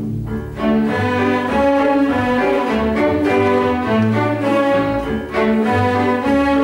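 String orchestra playing a hornpipe, violins on the melody over cellos and double basses. The low strings play alone at first and the full ensemble comes in about half a second in.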